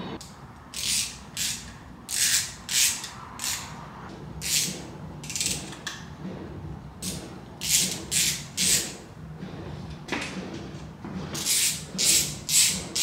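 Hand ratchet wrench worked back and forth, its pawl clicking in short bursts on each back-stroke, in quick runs of two to four strokes with pauses between. It is running down the lifter-tray retainer bolts on the engine block before they are torqued.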